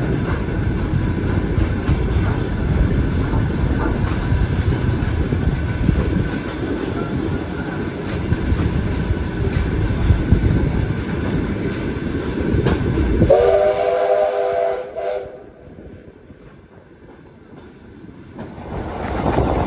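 Passenger train running, a steady low rumble and rattle of the coaches. About 13 s in, the steam locomotive's whistle sounds a chord of several tones for about two seconds; then the sound drops off suddenly to a low hush, and the train noise builds again near the end.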